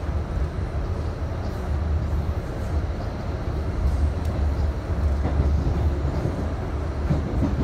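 Interior running noise of an R68A subway car at speed: a steady low rumble of steel wheels on the rails.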